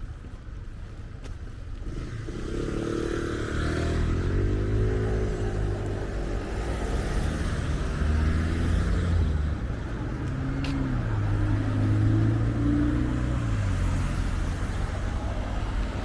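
A car engine running close by, its pitch rising and falling slowly over several seconds, over steady traffic noise.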